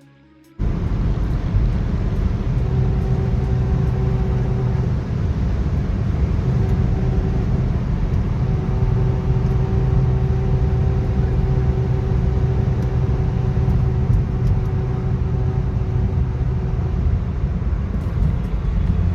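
Loud, steady vehicle noise from a BMW F-series car, with a low steady drone running through it: the excessive noise that the owner describes as a fault. It starts suddenly about half a second in.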